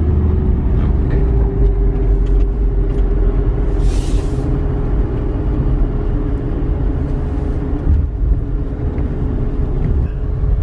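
Car running on the road, heard from inside the cabin: a steady low engine and road rumble with a drone that rises slightly in pitch early on. A brief hiss comes about four seconds in.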